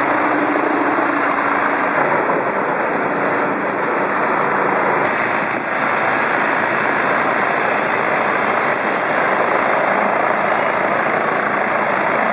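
Mosmatic Hurricane rotating undercarriage washer spraying high-pressure water up against the underside of a machine: a loud, steady hiss of water jets on metal. A low steady hum sits under it and fades out a few seconds in.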